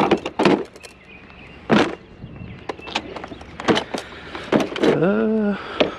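A string of knocks and clatters as curbside junk is handled and set down, with a short pitched sound that rises and then holds, about five seconds in.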